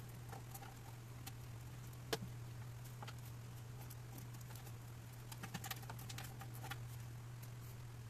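Faint plastic clicks and rattles of a graphics-card power cable connector being handled and pushed into the card's socket, with one sharper click about two seconds in and a quick run of small clicks past the middle. A steady low hum sits underneath.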